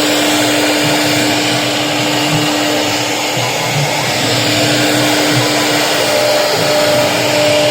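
CNC router spindle running with a steady whine over a constant rushing noise as the bit cuts HDHMR board; a second, higher whine joins near the end.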